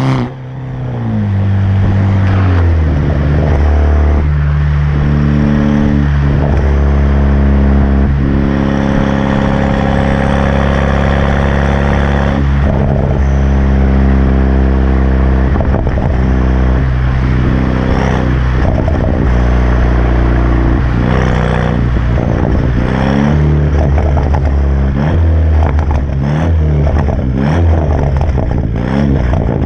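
Exhaust of a BMW 328i's turbocharged 2.0-litre four-cylinder, running through an M-Performance catback with the muffler and resonator deleted and an aftermarket downpipe. It drops from a rev to idle in the first couple of seconds, then idles steadily with a few brief pitch rises near the end and a few clicks in between.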